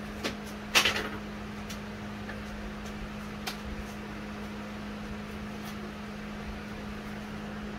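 A steady low mechanical hum, with a few light clicks and one sharper click just under a second in.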